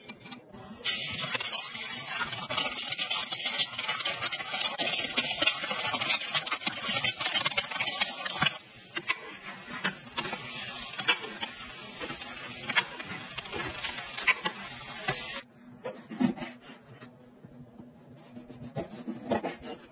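Eggs frying in hot oil in a four-cup nonstick egg pan, sizzling and crackling from about a second in. The sizzle is loud at first, drops somewhat in level a little past halfway, and stops about three-quarters of the way through. After that come a few soft knocks of a knife cutting small green citrus on a plastic cutting board.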